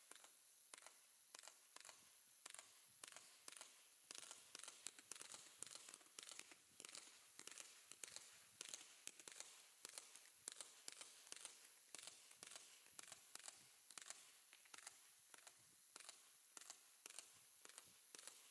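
Faint, rapid popping and crackling from a Zeus Fireworks Stealth 120-shot firework cake firing, many sharp cracks a second, busiest in the middle.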